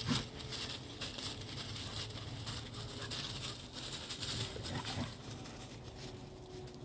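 Two dogs, an adult and a puppy, play-wrestling and chasing over dry fallen leaves: leaves rustling and crunching under their paws, loudest just at the start.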